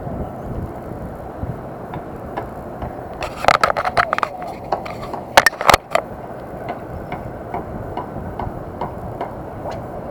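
Spinning reel being cranked, giving a light, regular ticking. A cluster of loud clicks and scraping handling noises comes in the middle, close to the microphone.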